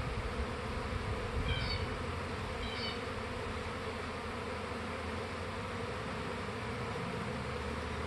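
Steady hum of thousands of honey bees in flight around the hive entrance, a colony in a practice (dry-run) swarm, a sign the hive is out of space and preparing to swarm.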